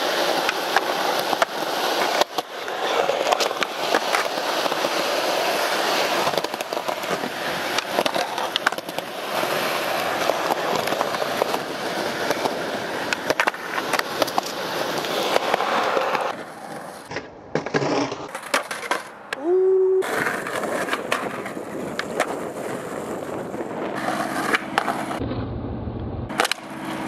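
Skateboard wheels rolling on concrete, with sharp clacks of the board popping and landing. Later the rolling breaks up into short cuts, and a low steady hum comes in near the end.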